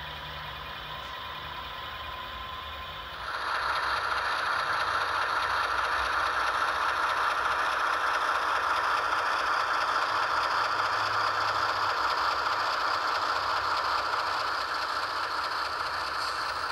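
Sound-equipped model diesel locomotives running, their onboard sound decoders playing diesel engine sound through small speakers along with the rattle of the models on the track. It is quieter with a thin steady tone at first, then becomes louder and rattly about three seconds in and stays steady.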